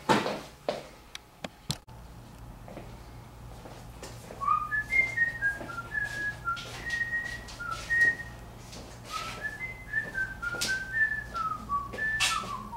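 A person whistling a tune in short notes that step up and down, starting about four seconds in, over scattered clicks and knocks of handling; a louder knock right at the start.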